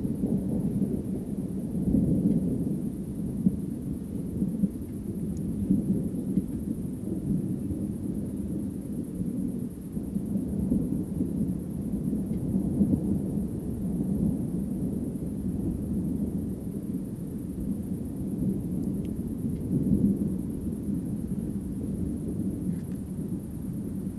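Thunder from a distant thunderstorm, rumbling on and on without a break and swelling and easing every few seconds.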